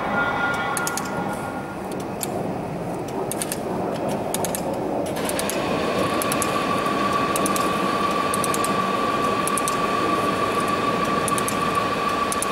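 Laser welding machine running with a steady machine noise, a steady whine joining about five seconds in, and repeated clusters of sharp ticks as the laser fires pulse after pulse along a stainless steel letter seam.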